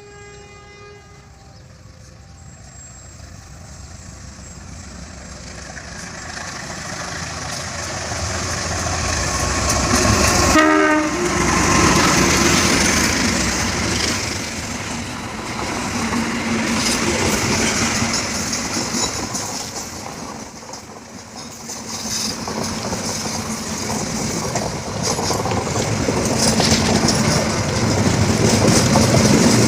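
Diesel locomotive-hauled train approaching, growing steadily louder for about ten seconds, with a short horn blast about ten seconds in. Then comes the loud rumble and wheel clatter of the train passing, dipping and swelling as it goes by.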